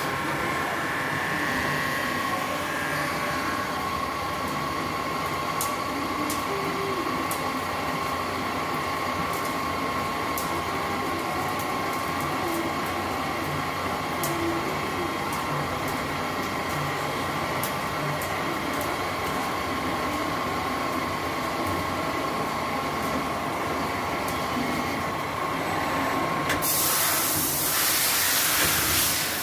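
CNC lathe running steadily while turning pins with a neutral-profile cutting tool, a steady whine with scattered light ticks over it. Near the end a loud hiss sets in.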